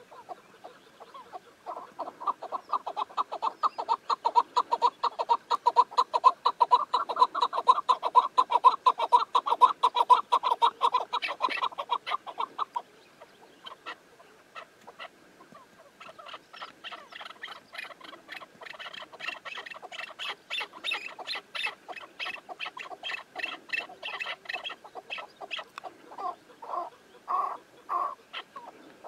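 Chukar partridges calling: a long, fast run of repeated chuck notes that cuts off about halfway through, then after a short pause a second, quieter run of calls.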